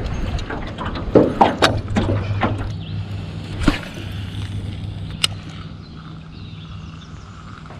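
A baitcasting reel being handled and cast: a quick run of clicks and knocks, two sharp single clicks around the cast, then a steady low hum with a faint whir.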